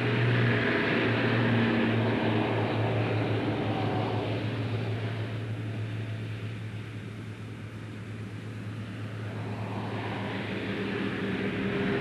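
A steady mechanical drone with a strong low hum, easing off around the middle and building again near the end.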